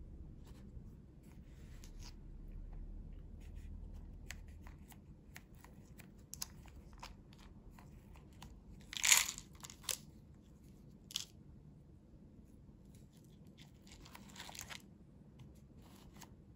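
Hands handling and turning plastic-wrapped Cup Noodle cups: scattered soft crinkles, taps and scrapes of the film wrap, with one louder crackle about nine seconds in.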